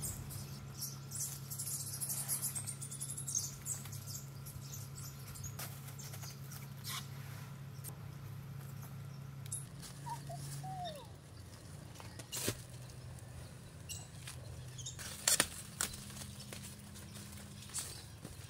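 Plastic cling film crinkling and crackling in scattered small clicks as the stretched wrap is handled, over a steady low hum.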